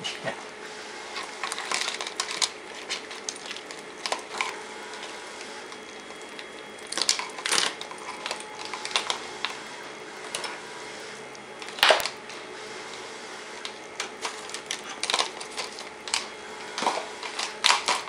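Rummaging through tools and small parts on a workbench: irregular clicks, knocks and clatter of hard objects being moved, with one sharper knock about twelve seconds in. A faint steady hum runs underneath.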